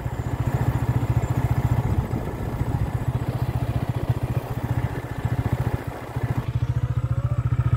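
Motorcycle engine running at a steady cruising speed, its exhaust beating in an even, rapid pulse, with wind and road noise that thins about six and a half seconds in.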